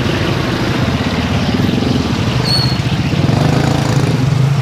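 Skewered seafood sizzling in oil on a flat griddle, over a steady low motor-like drone that is the loudest thing heard.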